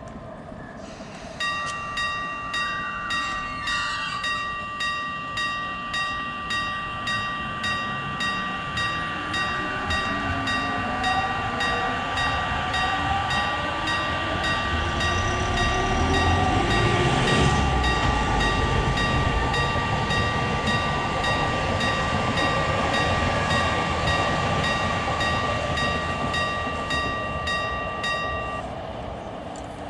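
Japanese railway level-crossing warning bell starts about a second and a half in, striking in a steady rhythm over a held electronic tone, while an electric train passes, its rumble building to a peak midway and fading. The bell stops near the end.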